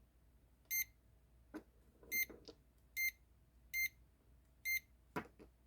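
Digital multimeter beeping five times: short, identical high beeps a little under a second apart. Scattered handling clicks and knocks come in between, the loudest near the end.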